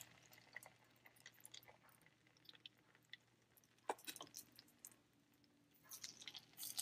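Near silence, with a few faint soft taps and squishes as a spoon drops thick batter into the oiled cavities of a kuzhi paniyaram pan, the clearest about four seconds in and a small cluster near the end.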